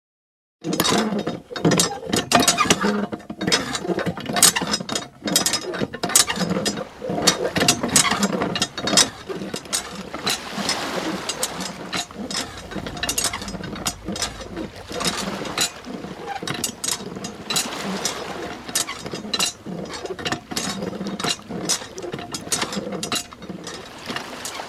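Homemade miniature hand pump worked up and down by its handle: a fast, irregular run of small clicks and rattles. Water trickles from its spout into a small pool.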